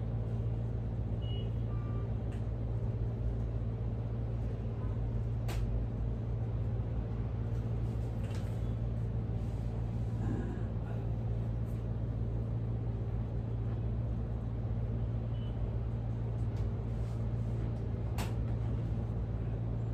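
A steady low machine hum runs unchanged throughout, with two sharp clicks, one about five seconds in and one near the end.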